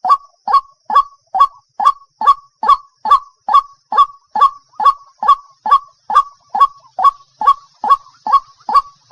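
Waterhen calling: a steady, even series of short, clipped notes, a little over two a second, each dropping slightly in pitch at its end. A faint steady high hiss lies underneath.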